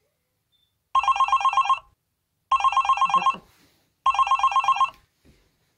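Telephone ringing with an electronic trill: three short bursts of rapid warbling pulses, each just under a second long, about a second and a half apart, with a fourth starting at the end.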